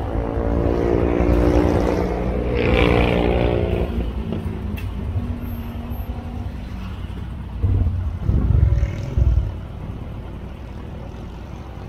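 Motorcycle engine running, its pitch rising a little and then falling away as it fades over the first four seconds. About eight seconds in come a few loud, short, low rumbling bursts.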